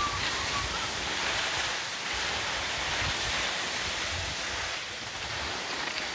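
Wind buffeting the phone's microphone in uneven low gusts over a steady hiss.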